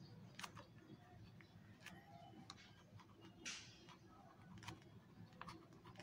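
Near silence, with faint scratching and small clicks from a pen writing on notebook paper. One slightly longer scratch comes about halfway through, over a low steady hum.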